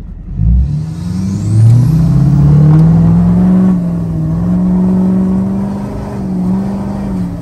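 Turbocharged diesel pickup engine accelerating, heard from inside the cab: its note climbs over the first two seconds along with a rising turbo whistle, then holds steady with brief dips about four and six seconds in.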